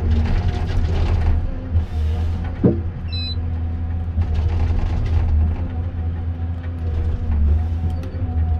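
Komatsu 931.1 forest harvester's diesel engine and hydraulics running steadily, with a low drone and a few held humming tones. A single sharp knock comes a little over two and a half seconds in, followed by a brief high squeak.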